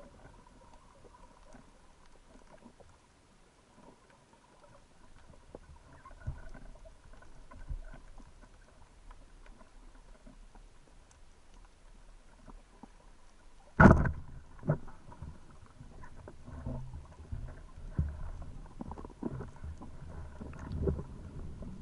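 Faint underwater ambience, broken about 14 s in by one sharp, loud crack of a speargun firing, followed by scattered clicks and low knocks.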